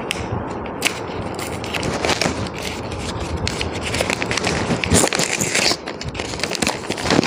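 Gift-wrapping paper being torn open and crinkled by hand, a steady papery crackle with sharp rips, louder around the middle and again near the end.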